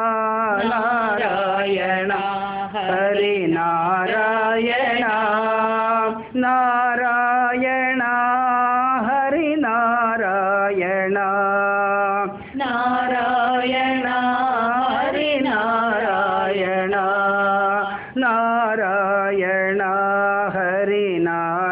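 Male and female voices singing a Hindu devotional namavali, the names of Lord Krishna set to a repeating melody. The phrases run about six seconds each, with brief breaths between them.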